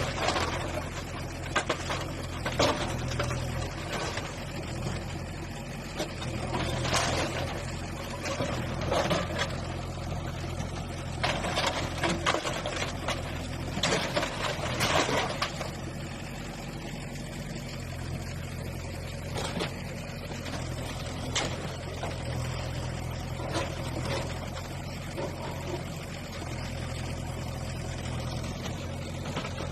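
A heavy demolition machine's engine running steadily, with repeated crashes and crunching of rubble in the first half as structures are knocked down.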